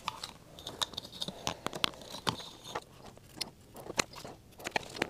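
Scattered light clicks, taps and rustles of close handling as a half-face respirator is fitted over the head and a small glue bottle is picked up and worked in the hands.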